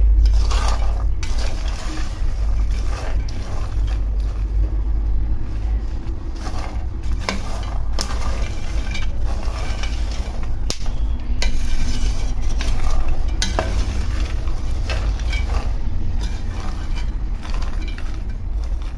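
Peanuts dry-roasting in a pan, stirred with a wooden spoon: the dry nuts rattle and scrape against the pan in irregular clicks and rasps, over a steady low hum. The nuts are nearly done, and the cook takes their sound in the pan as one of the signs that they are almost ready.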